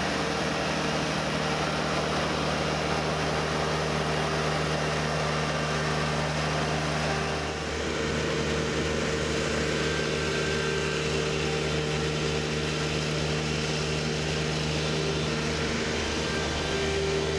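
SCAG Turf Tiger zero-turn mower with a Humus flail deck running steadily at a constant pitch, engine and spinning flail rotor together, with a brief dip about seven seconds in.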